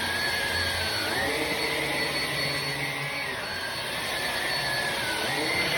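HART 20-volt cordless stick vacuum running steadily with its powered spinning-brush floor head, sucking up spilled baking soda. Its motor whine dips and rises a few times as the load changes.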